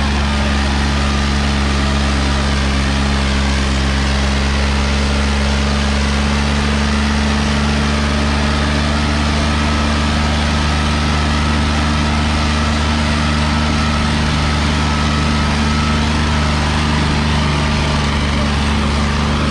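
John Deere 5045 tractor's diesel engine running steadily at an even speed while working a disc harrow.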